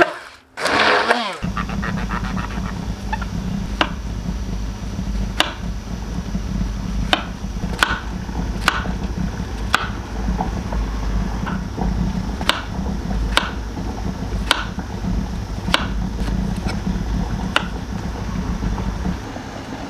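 A small motor running with a steady low hum, with sharp knocks every second or so. The hum stops just before the end.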